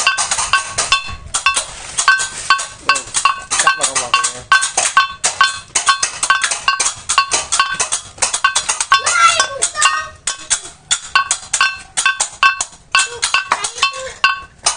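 Small Balinese ceng-ceng hand cymbals clashed together in a fast rhythm, about four strikes a second, each strike ringing metallic, as in children's imitation of the gamelan that accompanies a barong bangkung on ngelawang. Children's voices chant along here and there.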